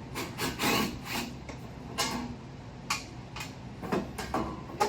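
Scattered, irregular clicks and knocks of hand tools and parts being handled, with a louder clatter a little under a second in.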